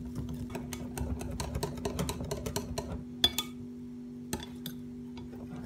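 Wire whisk beating flour into batter in a glass bowl: rapid clicking and tapping of the wires against the glass for about three seconds. Then comes one sharper, ringing tap on the glass, followed by a few scattered taps as the batter smooths out.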